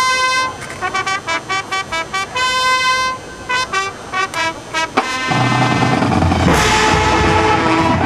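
Marching band brass playing short, punched notes with one longer held chord. About five seconds in the full band comes in with percussion and holds a loud sustained chord, with a cymbal-like splash soon after.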